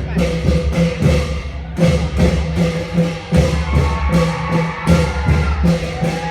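Thai klong yao long-drum ensemble playing an old-style rhythm: deep booming drum strokes under fast, regular cymbal clashes, about three to four a second. A wavering higher melody line joins around the middle.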